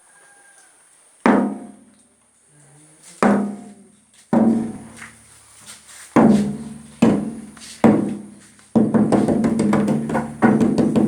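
Repeated strikes on a resonant object, each with a low ringing tone that dies away. The strikes come one to two seconds apart, then closer together in a quicker run of hits from about nine seconds in.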